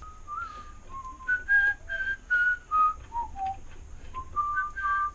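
A person whistling a tune: a string of short, clear notes that step and slide up and down.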